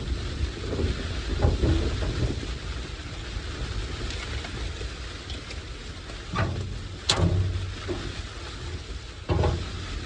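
Blizzard wind blowing hard, buffeting the microphone with a steady rumble. A few sharp knocks land through it, the loudest about seven seconds in.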